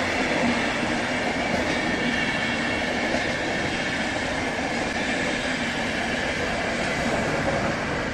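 Intercity train of IC passenger coaches with an electric locomotive rolling past, a steady noise of wheels running on the rails.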